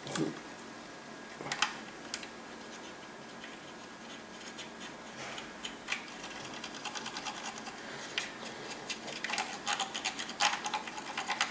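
Paintbrush scrubbing and dabbing oil paint onto a scale model's surface: a few scattered scratchy taps, then a quick run of short rapid scrapes over the last few seconds.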